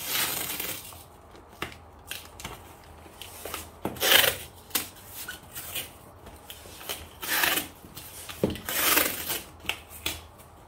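Adhesive tape pulled off its roll onto a cardboard box in four noisy rips, with the box rubbed and handled in between.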